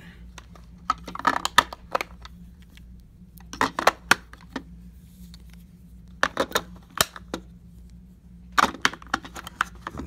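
AA batteries being pressed into the plastic battery compartment of a toy remote control: sharp clicks and small rattles of battery against plastic and contacts, in four short clusters a couple of seconds apart.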